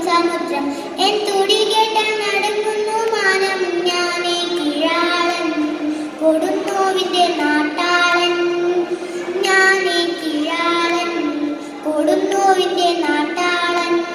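A young girl reciting a Malayalam poem in the sung kavitha style, solo with no accompaniment, her melody gliding and holding notes between short breaths.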